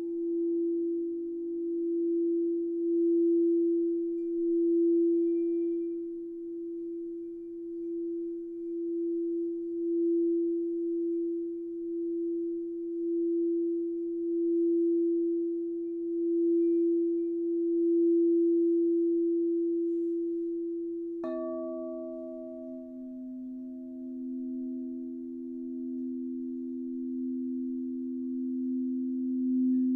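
A singing bowl sustains a steady, near-pure tone that swells and fades in a slow pulse. About two-thirds of the way through, a second bowl with a lower pitch is struck and rings on alongside the first.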